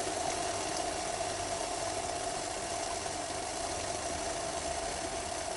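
Two cups of water in a steel cook pot at the boil over a small methanol alcohol stove, making a steady, unbroken sound.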